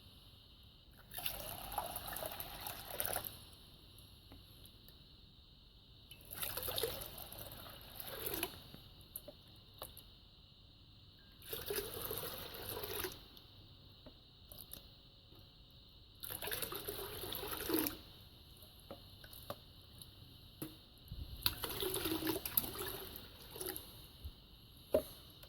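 Cat lapping water from a bowl, in five short bouts of wet lapping with pauses between.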